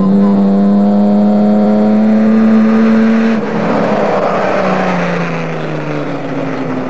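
Off-road race car's engine at high revs, approaching and passing close by. Its pitch rises slightly, then drops about halfway through as it goes past and carries on falling as the car moves away.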